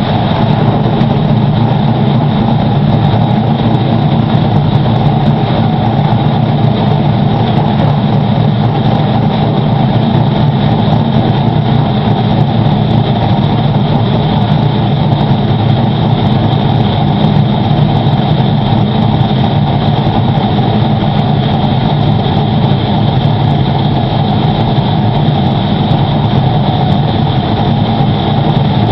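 A car engine running steadily at one constant speed, with no revving.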